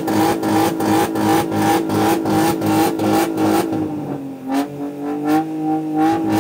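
BMW engine revved hard and held at high rpm, pulsing about four times a second, as it is pushed to overheat. About four seconds in the revs drop and then climb again.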